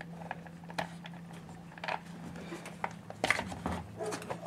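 Small clicks and light knocks of the housing and parts of a Makita SDS-Max demolition hammer being handled during disassembly, with a cluster of them about three seconds in. A steady low hum runs underneath.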